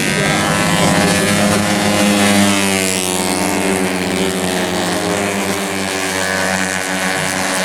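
Tuned 130 cc automatic scooter engines racing at high revs, their pitch falling and rising as they pass and change speed.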